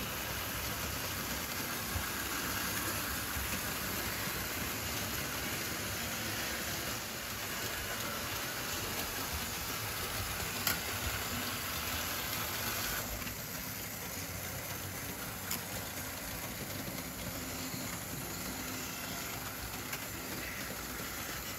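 Märklin HO model trains running on the layout's track, a steady rolling hiss and hum with a few single sharp clicks. It turns a little quieter about two-thirds of the way through.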